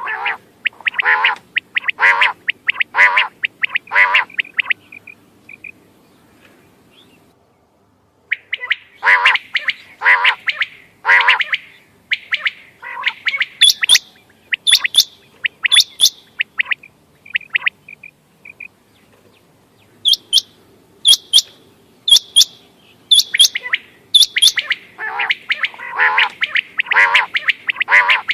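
Quail (bater) calling over and over: runs of short, quick notes repeated about once a second, broken by short pauses, with sharper high-pitched notes between the runs.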